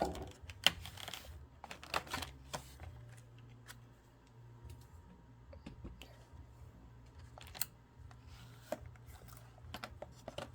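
Irregular light clicks and taps from small plastic parts and packaging of a model train box being handled, a few louder knocks among softer ones, over a faint steady low hum.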